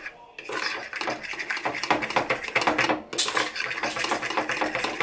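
Metal fork whisking barbecue sauce in a plastic bowl: rapid scraping and ticking of the tines against the bowl. It starts about half a second in, with a short break about three seconds in.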